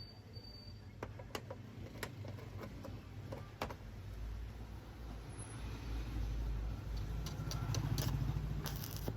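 A steady low mechanical hum with a few sharp clicks and knocks in its first half, growing louder near the end.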